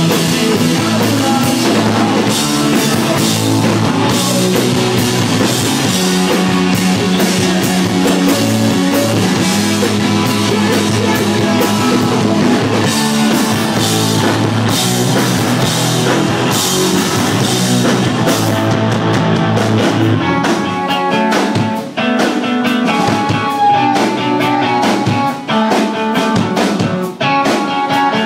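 Rock band playing live and loud, with electric guitars and a drum kit. About twenty seconds in, the low end drops away and the music thins to ringing guitar notes and drum hits.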